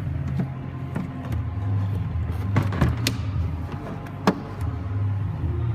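Steady low machine hum with several sharp clicks and knocks over it, the loudest about four seconds in.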